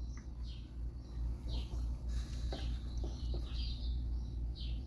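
Bird chirping in the background, short falling chirps about once a second, over a steady low hum, with a few soft knocks of a spoon against the dish as ceviche is served.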